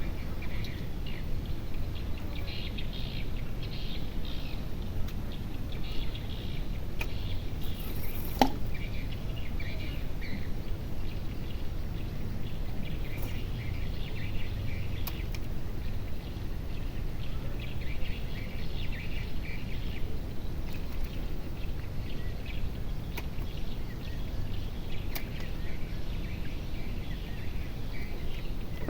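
Steady low outdoor rumble with scattered bird chirps throughout, and a single knock about eight seconds in.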